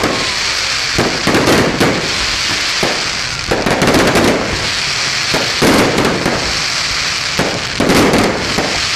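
Fireworks going off: clusters of crackling and popping bursts every second or two over a steady high hiss.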